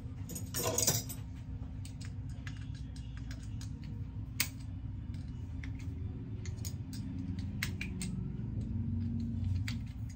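Scattered light metallic clicks and ticks from hands working the controls of a manual Logan lathe's compound and tool post, with a brief scratchy rush near the start, over a steady low hum.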